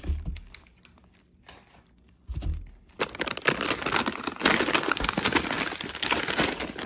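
Plastic bag of Snyder's pretzel sticks crinkling as it is lifted and handled, starting about three seconds in and carrying on. Before that, a couple of soft low thumps.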